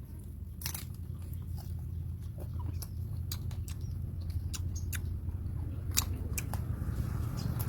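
Scattered short sharp clicks and crunchy taps, irregular, over a steady low rumble that slowly grows louder.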